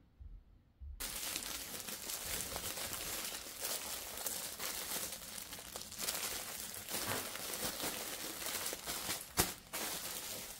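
Packaging crinkling and rustling as it is handled, starting suddenly about a second in and going on steadily, with one sharp click near the end.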